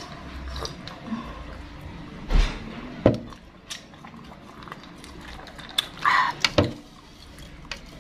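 A person drinking from a plastic cup: quiet sips and swallows, with a few soft knocks of the cup, the strongest about two and a half and three seconds in.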